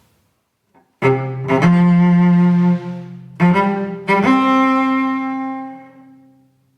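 Solo cello, bowed, playing a short musical example: a held low note with a higher note stepping upward over it, the sound dying away near the end.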